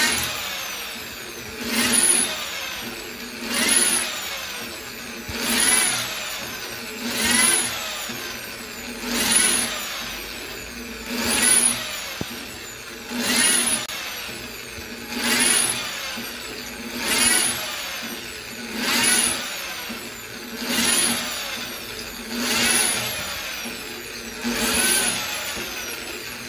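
Electric drill boring into glazed ceramic wall tile, its trigger pulsed so the motor surges up to speed and drops back about every two seconds, fourteen times over.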